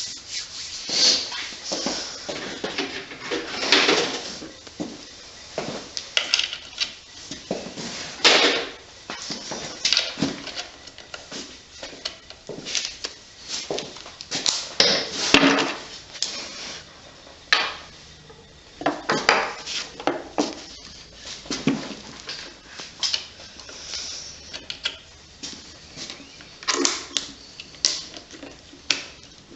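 Hand tools clinking, scraping and clattering against the metal casing and parts of a small single-cylinder engine as the kick-starter is worked off, in irregular bursts.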